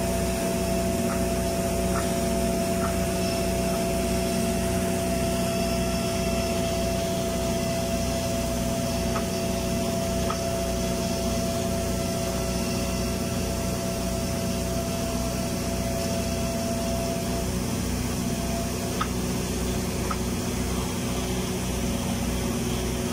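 Automatic girth welding machine running along a horizontal tank seam on a submerged-arc capping pass: a steady machine hum made of several held tones over a low, even pulsing. The highest tone drops out about three quarters of the way through.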